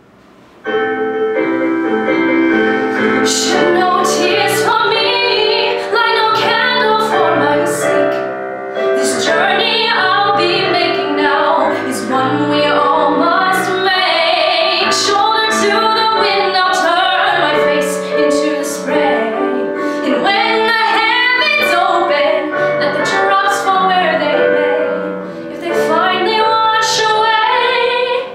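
A woman singing a musical-theatre ballad solo, with piano accompaniment; the music starts about a second in.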